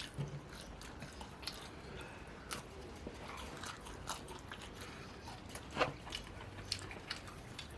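Close-miked eating: quiet chewing and biting with scattered short clicks and small crunches, the loudest about six seconds in.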